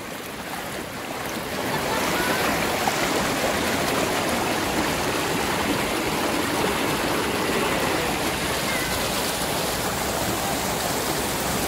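Shallow river water rushing over rocks close to the microphone. It is a steady rush that grows louder about a second and a half in.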